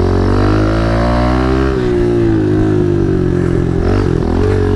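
Kawasaki KLX 110's single-cylinder four-stroke engine running under the rider, its pitch climbing for about a second and a half and then easing off, with a brief dip about four seconds in before it picks up again.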